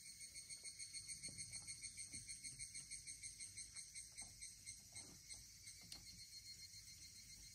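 Insects chirping faintly in a quick, even pulsing rhythm that eases off about two-thirds of the way through, with a few faint ticks near the end.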